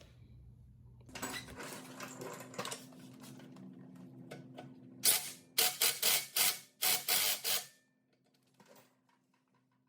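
Wrench work on the shock mounting bolts: a run of rapid mechanical rattling, then about six short, loud bursts of rattling, roughly two a second.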